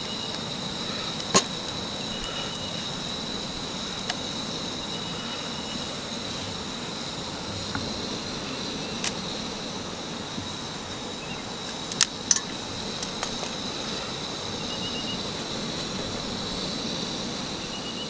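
Insects trilling steadily in one high unbroken tone over a steady low hiss, with a few short chirps and some sharp clicks, one about a second in and two close together near twelve seconds.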